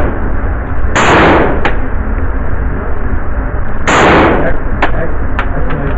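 Semi-automatic PPS-43 submachine gun firing 7.62x25mm rounds: two single shots about three seconds apart, each ringing on briefly in the indoor range. Several shorter, fainter sharp cracks fall between and after them.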